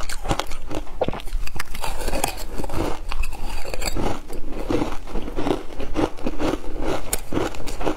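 A person biting and chewing frozen shaved ice: a steady run of loud, dense crunches.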